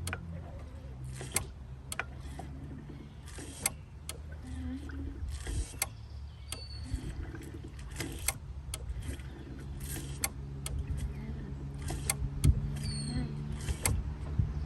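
Scattered sharp clicks and light knocks from hands-on work at a truck's brake master cylinder during brake bleeding, with two brief high squeaks, over a steady low hum.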